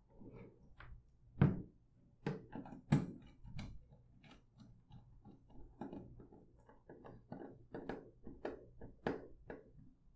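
Small screwdriver tightening the cable terminal screws on an MPPT solar charge controller, with cables being handled: a run of irregular small clicks and knocks, the loudest few in the first three seconds.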